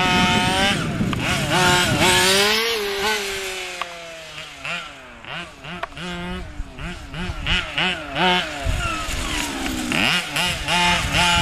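Radio-controlled touring car's motor revving hard and easing off again and again as it laps the track, its pitch climbing on the straights and falling into the corners.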